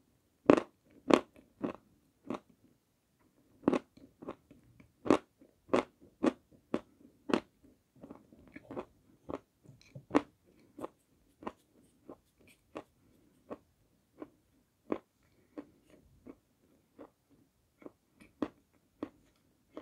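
Close-up biting and crunching of a dry block of white edible clay, chewed with sharp, crisp snaps about two a second. The crunches are loudest in the first half and turn fainter and more frequent later as the mouthful is chewed down.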